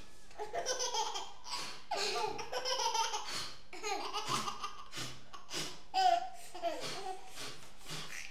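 A baby laughing in a run of short, breathy belly laughs, one burst after another.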